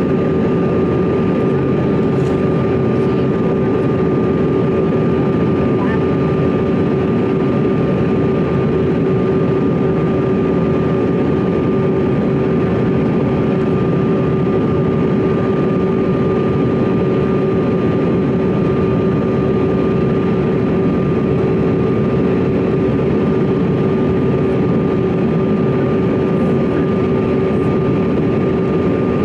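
Steady cabin noise inside a CRJ-200 regional jet on approach: air rushing past the fuselage under the even whine of its rear-mounted General Electric CF34 turbofans, with two constant tones, one low and one higher, held unchanged throughout.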